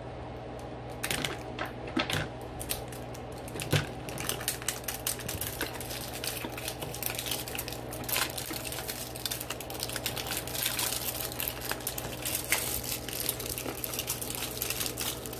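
Clear plastic wrapper being peeled and crinkled off a Mini Brands capsule ball: a run of small crackles and clicks, growing denser in the second half.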